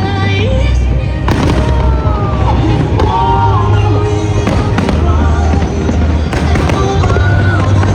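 Fireworks bursting in sharp bangs, several of them, over a loud music soundtrack with a melody line running throughout.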